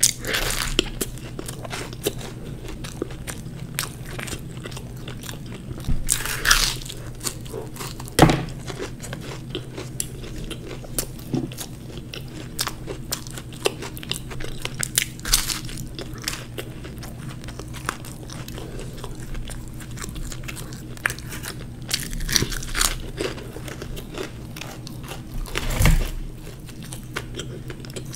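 Close-up biting and chewing of deep-fried samosas: crisp pastry crunching and chewing, irregular throughout, with a few louder bites.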